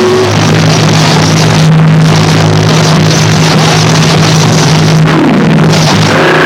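Harsh noise music: a loud, dense wall of distorted noise over a steady low drone, with sliding, arching tones near the end.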